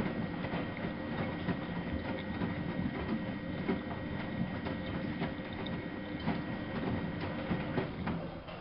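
Miele Novo Super W933 washing machine running, with a steady mechanical hum and dense irregular clicking and rattling.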